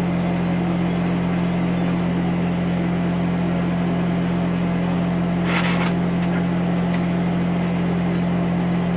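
A vehicle engine idling steadily. About five and a half seconds in there is a short, noisy rasp.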